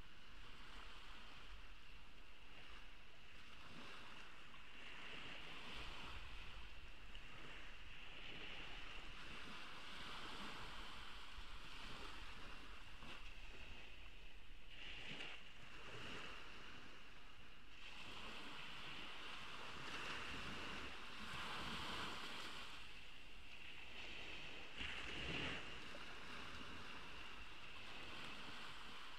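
Ocean waves washing onto the beach, a steady rush that swells every few seconds as each wave breaks, over a steady high-pitched hum.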